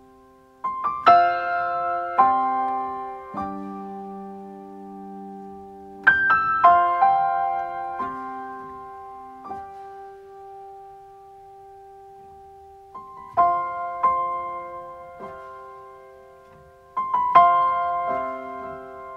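Background music: slow, gentle solo piano, soft chords struck and left to ring out, in unhurried phrases with long sustained pauses between them.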